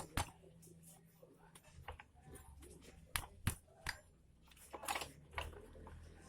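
Scattered light clicks and taps of metal parts and hand tools being handled, one every second or so.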